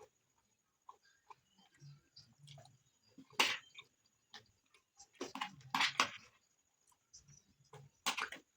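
Close-up eating sounds: rice and beans stew being chewed, with sharp wet mouth clicks and smacks. The loudest are a click about three and a half seconds in, a cluster around the middle and another near the end.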